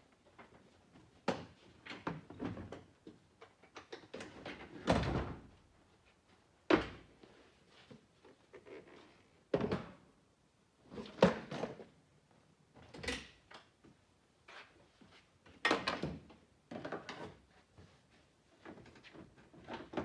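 Clunks, knocks and rattles of a UTV's seats being unlatched and pulled out and its doors being opened and shut: a dozen or so separate bumps spread out, with a longer scraping rustle about five seconds in.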